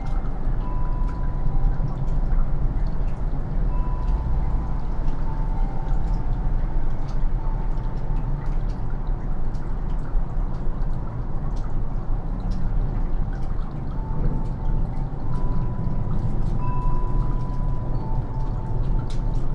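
Melting snow dripping, many separate drops ticking irregularly, over a steady low rumble. A few faint, held wind-chime tones ring now and then.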